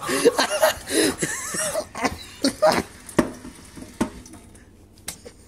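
A boy's wordless vocal noises, pitched and wavering, over the first few seconds, then a few sharp knocks as it quietens.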